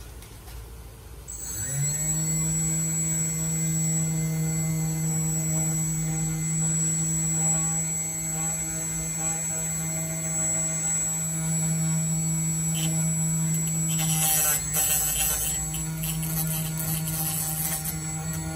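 Electric motor of an automatic wire-cutting machine for separating phone screen glass: it spins up about a second in and then runs at a steady hum with a high whine. In the last few seconds a scratchy rasping joins in as the cutting wire bites into the screen.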